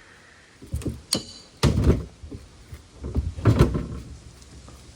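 Irregular knocks and thumps of a wood lathe's shipping box and packing being opened and handled, the heaviest about two seconds in and again about three and a half seconds in.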